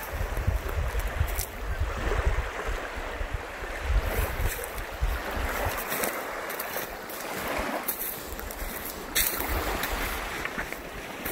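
Wind buffeting the microphone in gusts over the steady wash of small lake waves on a sandy shore.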